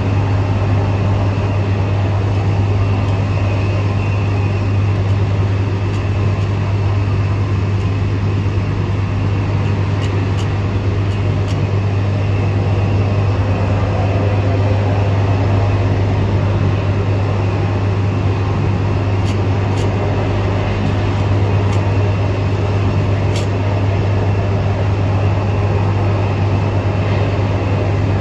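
A steady low hum with an even hiss over it, unchanging throughout, with a few faint clicks.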